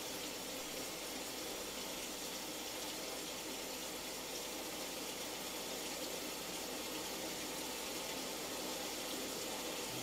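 Steady rain: an even hiss of falling water, unchanging throughout.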